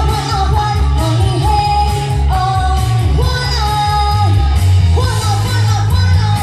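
A woman singing into a microphone over a loud pop backing track with a heavy, pulsing bass beat.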